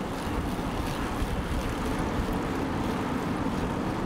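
Steady low rumbling wind noise with no pitched tone.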